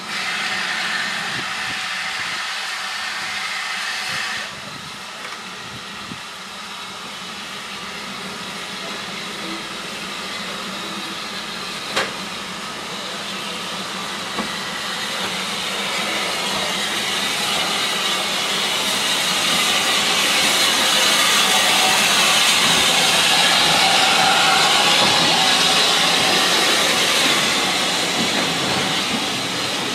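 Steam locomotive hissing steam for the first few seconds until it cuts off sharply, then the engine running tender-first past with its passenger coaches rolling by on the rails. There is a single sharp click about twelve seconds in, and the noise grows as the coaches pass, easing off near the end.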